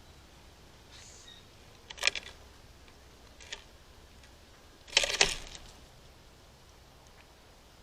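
Sharp taps and knocks from birds on a feeder platform, irregular and a few seconds apart, with a loud double knock about five seconds in.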